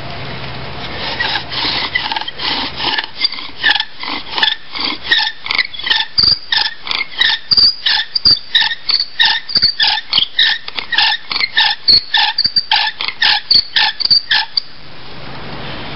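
Bow drill being worked: the wooden spindle squeaks against the hearth board with each stroke of the bow, about two or three squeaks a second, stopping near the end.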